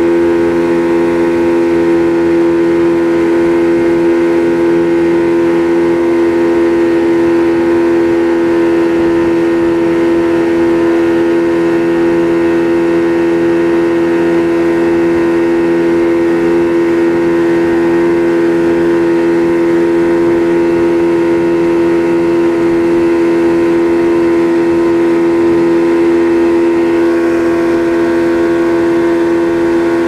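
Yamaha Enduro 115 two-stroke outboard motor running steadily at speed, a loud even drone whose pitch holds throughout, over the rush of water past the hull.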